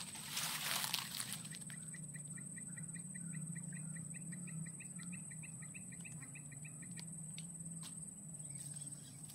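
A bird giving a rapid series of short, even chirps, about five a second, for several seconds, over a steady high-pitched insect drone and a low hum. A brief rustle comes near the start.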